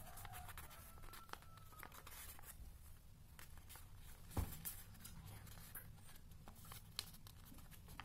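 Faint rustling and soft creasing of origami paper as it is folded and pressed by hand, with one sharper click a little over four seconds in.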